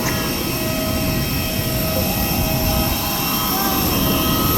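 Jet airliner engine noise: a steady roar with several high, steady whining tones over it.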